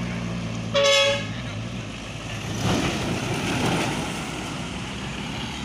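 A tour bus's Basuri telolet horn gives one short single-note toot about a second in, over the low steady running of a bus engine. A louder rush of noise then swells and fades.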